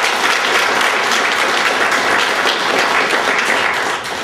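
Audience applauding: many hands clapping in a dense, steady clatter that dies away near the end.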